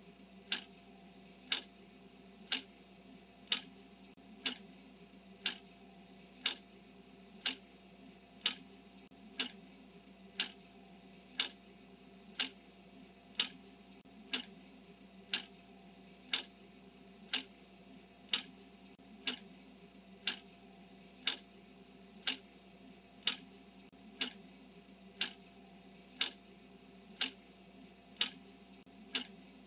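Clock ticking once a second, sharp even ticks marking each second of a countdown timer, over a faint steady hum.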